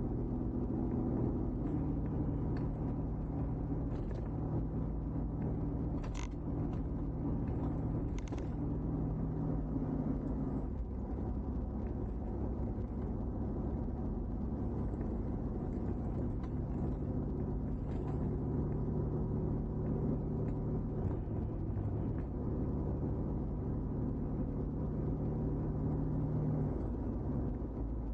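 A car's engine running steadily under tyre and road rumble. The engine note shifts about two seconds in, again around eleven seconds and near the end, and a couple of light knocks come through around six and eight seconds in.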